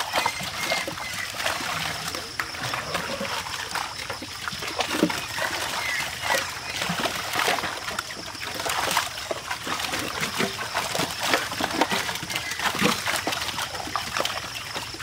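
Many live tilapia thrashing in shallow water inside a net, giving irregular wet slaps and splashes as hands grab them and lift them out.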